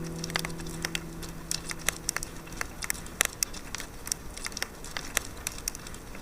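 Campfire crackling and popping in irregular sharp snaps, while the last acoustic guitar chord fades out over the first couple of seconds.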